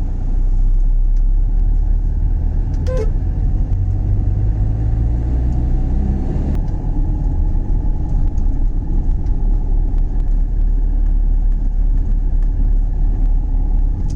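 A road vehicle on the move, with steady engine and road rumble. The engine note rises for a few seconds as it accelerates, and there is a brief toot about three seconds in.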